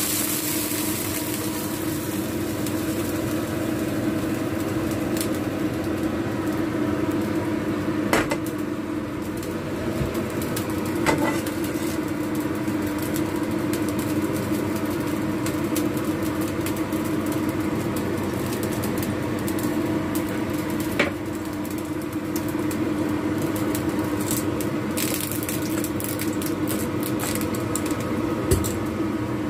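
Kitchen extractor fan humming steadily over the stove, with a few short clunks of cookware against the pan.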